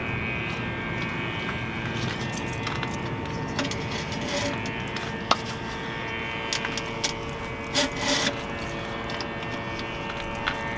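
Oil dipstick being worked back into its tube on a semi truck's engine, with scattered small metal clicks and rattles, one sharper click about halfway through. Under it a steady mechanical hum.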